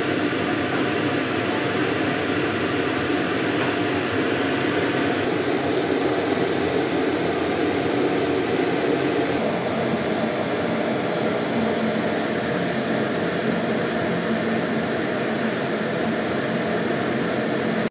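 Steady whooshing noise like a fan running, with a faint hum. Its tone shifts slightly about five seconds in and again about nine seconds in.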